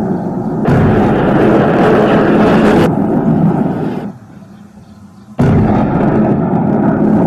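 Shell explosions: a sudden loud blast about a second in and another about five seconds in, each followed by a long, noisy rumble.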